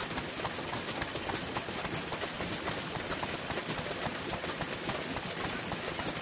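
Several vintage Japanese stationary kerosene engines running together, a dense, irregular clatter of overlapping firing knocks and clicks.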